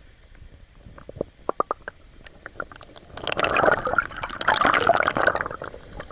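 Water sounds: a few small taps and drips, then about three seconds in a loud spell of splashing and gurgling water that eases off near the end.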